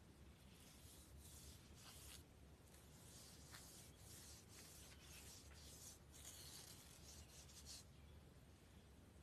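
Palm sweeping dry white powder across the bottom of a clear plastic tub: a faint scratchy hiss in a series of strokes that stops a little before the end.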